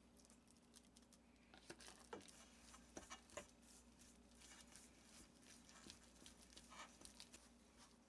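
Faint soft scraping and scattered light clicks of a spatula stirring mashed potatoes into a flour mixture in a stainless steel bowl.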